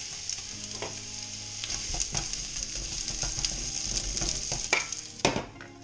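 Diced onions freshly added to hot oil, sizzling in a frying pan to caramelise, while a spatula stirs them with scraping and tapping against the pan. Near the end come two sharp knocks, and the sizzle quietens.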